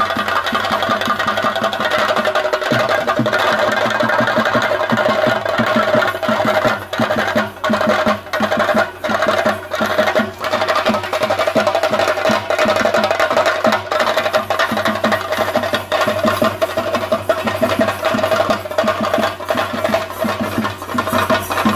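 Chenda drum ensemble playing a fast, dense rhythm for a theyyam dance, with a steady held tone sounding over the drumming.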